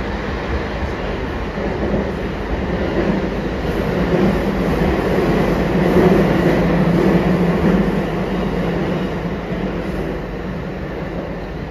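Running sound heard inside a JR East E233 series 5000 electric commuter train car travelling at speed: steady wheel-and-rail rumble with a low hum, growing louder in the middle and easing off near the end.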